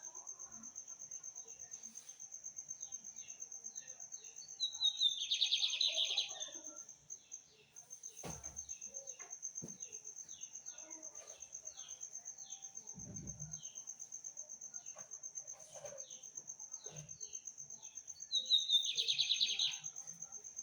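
A small songbird, a caged seedeater, singing. Two loud phrases come about fourteen seconds apart, each a quick run of falling notes going into a buzzy trill for about a second and a half, with softer chirps between them. Under it all is a steady high-pitched whine.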